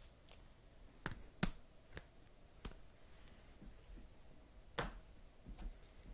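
Trading cards being handled: a handful of sharp, irregular clicks and taps, the loudest about a second and a half in.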